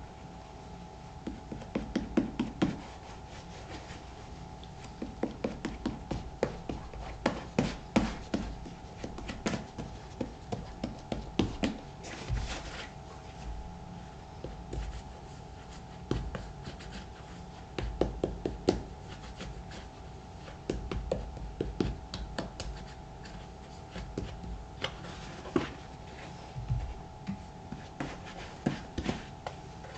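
Hands working shoe cream into the leather of a black Thorogood moc-toe boot: close-up rubbing and scuffing with frequent small taps and clicks of handling, coming in irregular clusters.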